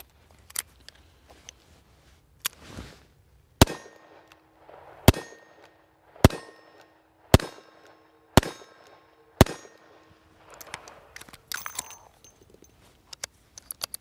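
SAR 38 revolver fired six times, about one shot a second, with a metallic ring hanging on between the shots. A few light clicks before and after the string.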